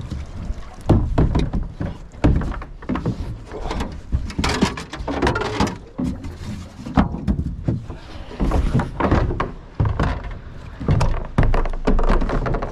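Small boat out on the water: irregular knocks and thuds with a low rumble of wind on the microphone.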